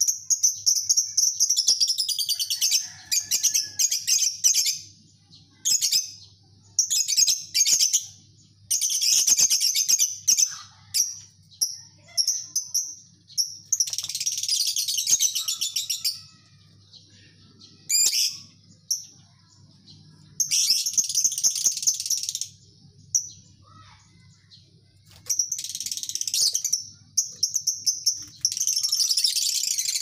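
A colony of lovebirds chattering in rapid, high-pitched trills (the 'ngekek' chatter), coming in about a dozen bursts of one to three seconds each with short pauses between.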